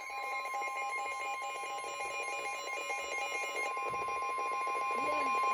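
Weather radio warning alarm: a single steady tone just above 1 kHz, typical of the NOAA Weather Radio 1050 Hz alert tone, held for about five seconds and cutting off near the end. It is the signal that a weather warning is being broadcast.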